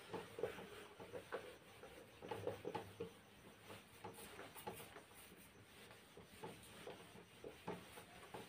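Whiteboard eraser wiping marker writing off the board: faint, irregular rubbing strokes, several a second.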